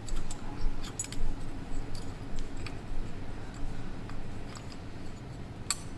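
Small metal clicks and scrapes of a key being fitted and worked in a puzzle padlock, irregular, with a sharper click near the end.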